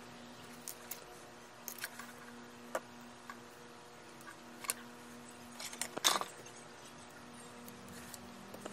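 Scattered light clicks and taps of small tools and parts being handled on a workbench during soldering, over a faint steady hum, with a brief cluster of louder clicks about six seconds in.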